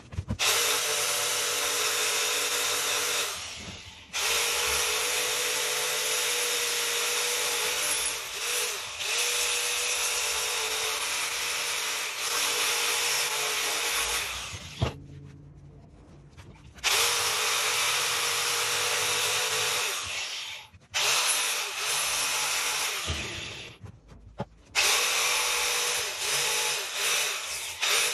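Angle grinder with a disc sanding pallet wood: a steady motor whine under the rasp of the disc on the wood. It runs in long stretches and stops or eases off briefly about four times, the longest pause about two-thirds of the way through.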